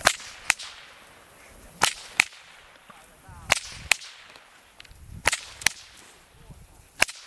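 A whip being cracked again and again: sharp, loud cracks coming in pairs less than half a second apart, a new pair every second and a half or so.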